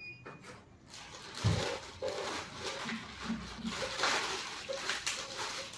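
Large plastic courier bag rustling and crinkling as a hand rummages inside it, with a soft thump about a second and a half in.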